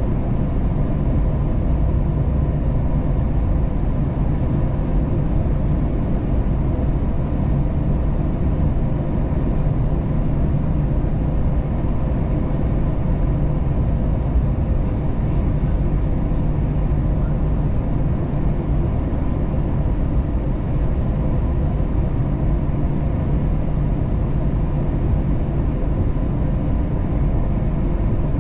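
Airbus A320 jet engines and airflow heard from inside the passenger cabin: a steady, even drone with faint steady hums above it.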